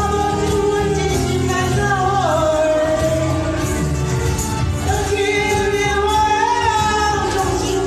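A woman singing a pop ballad into a handheld microphone over a karaoke backing track with a steady bass line, holding long notes with vibrato.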